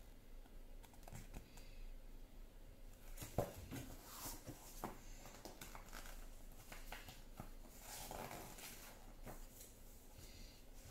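Faint rustling and handling of a paperback picture book, with scattered soft taps and clicks; the sharpest tap comes about three and a half seconds in.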